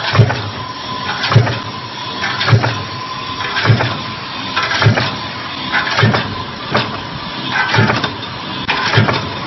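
Punch press running a progressive cup die for concealed cabinet hinges, striking in a steady rhythm a little under once a second. A steady high machine whine runs underneath.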